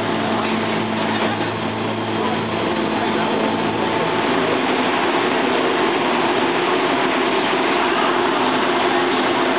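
Motorcycle engine running steadily. About four seconds in its pitch shifts, the lower notes dropping out and a higher set carrying on.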